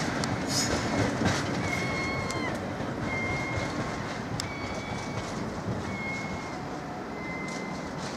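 Train moving through the station, its wheels rumbling and clacking over the rail joints as it slowly fades away. A short, even high call repeats about once a second over it.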